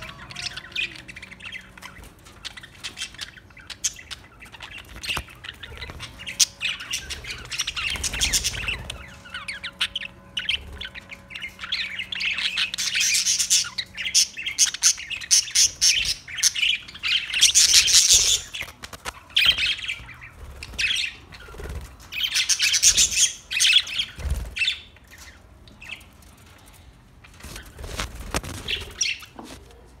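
A flock of budgerigars chattering and warbling with dense rapid chirps and squawks, rising into louder spells of chatter several times.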